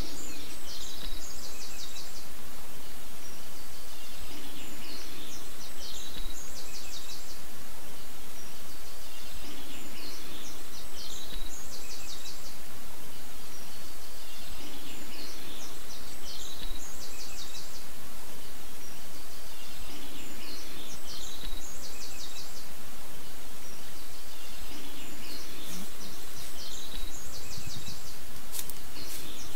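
Steady outdoor background noise, with a songbird singing short, fast-trilled phrases every few seconds.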